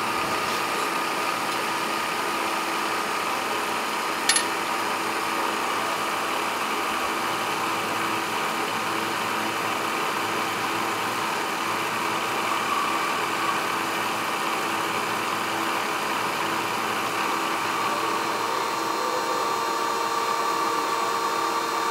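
Drill press motor running steadily while drilling holes in 3D-printed resin cams, with one sharp click about four seconds in.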